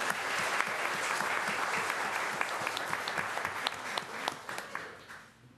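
Room full of people applauding, a dense patter of hand claps that dies away near the end.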